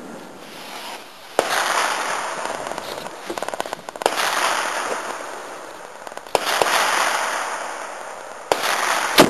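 Rifle shots at a shooting range: about five sharp reports, each trailing off in a long rolling echo, with the loudest, sharpest one near the end.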